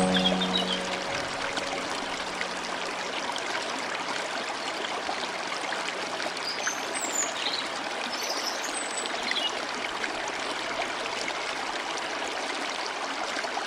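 Steady rushing and trickling of a flowing stream. A low note rings and dies away over the first few seconds, and a few faint, short high chirps come through near the middle.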